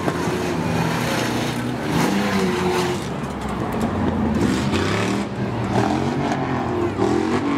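Several pickup trucks' engines racing around a short oval track, many engines at once, their pitch rising and falling as the trucks accelerate and lap.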